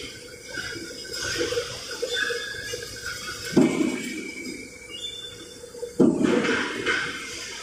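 Metal plates clinking and clanking as they are handled on a workbench, with two louder clanks about three and a half and six seconds in, over a faint steady machine hum.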